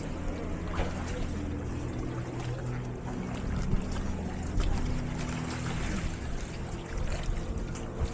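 A boat's engine running steadily with a low hum, its pitch shifting slightly over the seconds.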